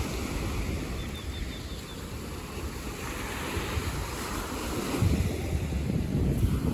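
Surf washing onto a sandy beach, with wind buffeting the microphone; the wind rumble grows stronger about five seconds in.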